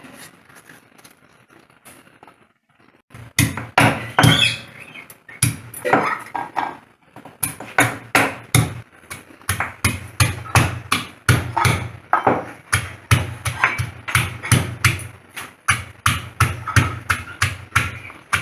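Steady chopping or pounding strikes on a hard surface, about two to three a second, as food is cut or crushed by hand. A few scattered knocks come first, and the strikes settle into a regular rhythm about seven seconds in.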